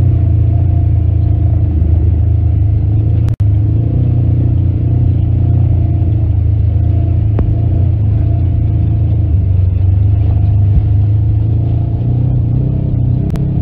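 Engine of a side-by-side off-road vehicle running at a steady low rumble while driving along a dirt trail, heard from on board. The sound cuts out for an instant a little over three seconds in.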